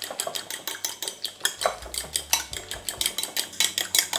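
Fork beating raw eggs in a ceramic bowl, its tines clicking rapidly and evenly against the bowl's sides as the eggs are whisked.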